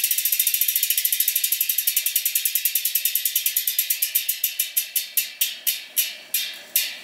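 Rear freehub of a Hunt Four Season Dura Disc wheel ticking as the wheel freewheels, a rapid stream of clicks that slows steadily to a few clicks a second as the wheel spins down.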